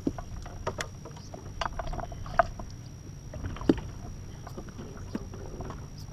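Small fishing boat drifting on calm water: scattered light knocks and clicks at irregular times over a steady low rumble.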